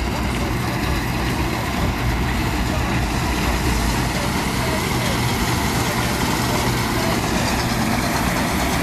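Bizon Z056 combine harvester running while cutting grain: its diesel engine and threshing machinery give a steady, loud mechanical noise.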